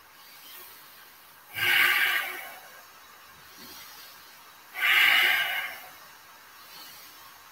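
Two loud, deep breaths from a man holding a forward-fold stretch, about three seconds apart.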